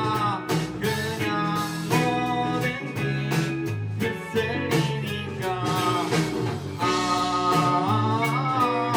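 A live band playing a rock song: guitars over bass and drums, with a regular beat of drum and cymbal hits.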